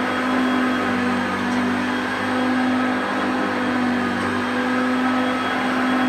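Hoover Concept One upright vacuum cleaner running on carpet: a steady motor hum and whine, its level rising and falling a little as it is pushed back and forth.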